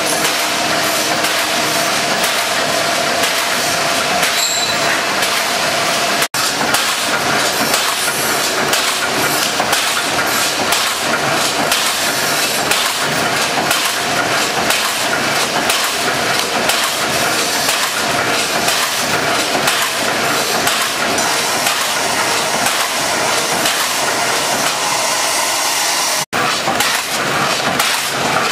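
Automatic can-making press running at speed: a steady, fast clatter of repeated press strokes, broken twice by a momentary gap.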